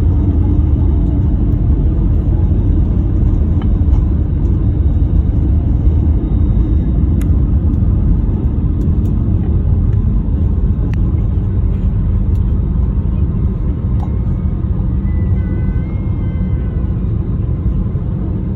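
Airbus A320 on the ground after landing, heard from inside the cabin: a steady low rumble of engines and wheels with small rattles, slowly easing off near the end.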